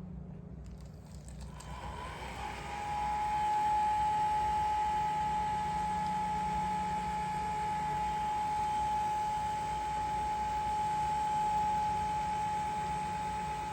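Hair dryer blowing a dog's fur: it comes on about two seconds in and runs steadily with a high whine.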